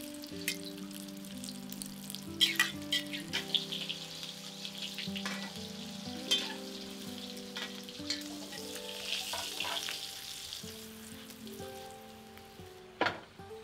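Egg omelette sizzling as it fries in oil in a metal wok, with metal spatulas scraping and clicking against the pan as it is turned and folded. A sharp metal clink comes near the end.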